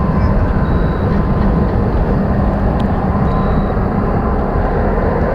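Steady industrial din from the Zug Island steel works: a constant low rumble and drone with a steady hum running through it. A faint short high tone sounds twice.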